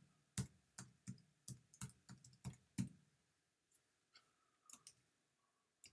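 Computer keyboard keys clicking as someone types: about ten quick keystrokes in the first three seconds, then a few scattered ones.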